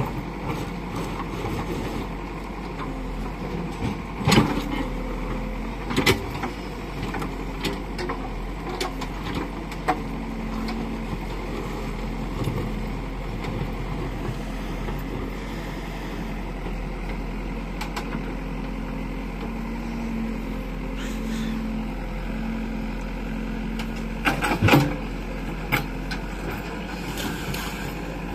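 JCB backhoe loader's diesel engine working steadily as the backhoe digs, with a few sharp knocks, the loudest about four seconds in and again near the end.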